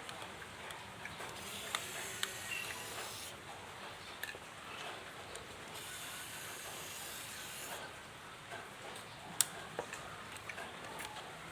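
Scattered light clicks and taps over a steady hiss, the sharpest a single click about nine seconds in.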